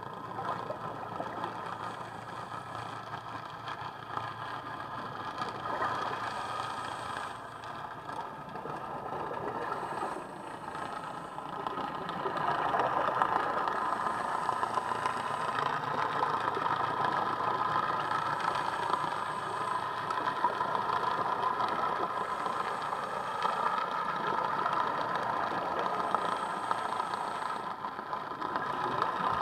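A boat's engine and propeller drone heard underwater: a steady mechanical hum that grows louder about twelve seconds in and then holds.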